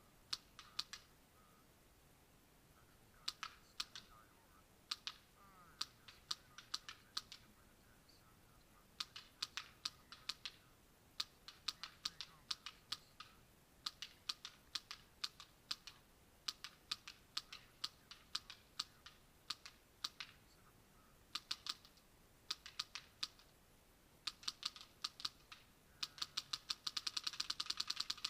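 Planet Eclipse LV1 paintball marker firing short rapid strings of shots, sharp clicks several a second with pauses between strings, and a faster, continuous string near the end.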